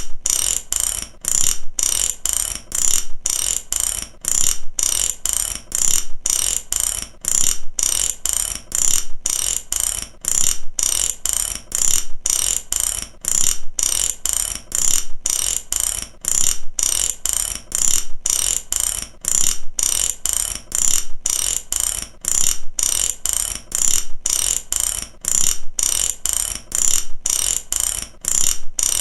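Mechanic's ratchet wrench clicking in rapid runs of pawl clicks, one run about every second, repeating steadily.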